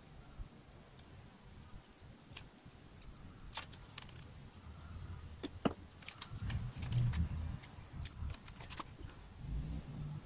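Small clicks and rattles of hands tying a plastic crate to a wooden pole, with plastic knocking and a sharp click about 8 seconds in, over a faint low rumble.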